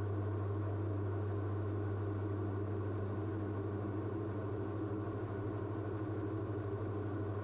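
Steady low drone of the Diamond DA42's two piston engines and propellers at a constant power setting in level flight, heard from inside the aircraft.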